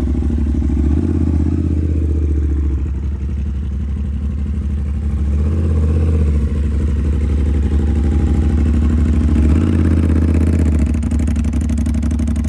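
2022 Aprilia Tuono 660 Factory's parallel-twin engine idling after a cold start through a full titanium SC Project CRT exhaust, the low exhaust note shifting slightly a few times as it warms.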